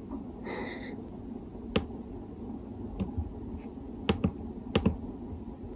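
A handful of irregular keystrokes on a laptop keyboard, single sharp clicks with some in quick pairs, over a low steady room hum.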